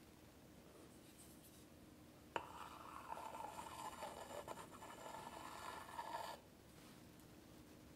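Metal offset spatula scraping whipped cream around the side of a frosted cake: a sharp click about two and a half seconds in, then about four seconds of steady scraping that stops suddenly.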